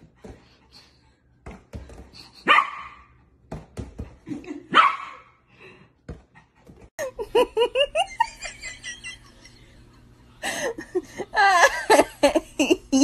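A puppy barking in short, sharp yaps as it jumps at a balloon, with two loud yaps about two and a half seconds apart. Near the end, laughter.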